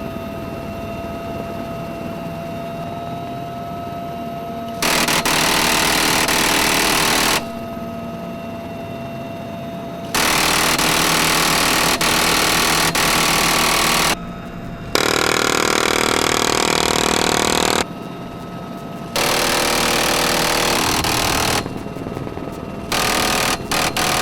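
Machine gun firing in long bursts of two to four seconds each, four times, then a few short bursts near the end. A quieter steady whine fills the gaps between bursts.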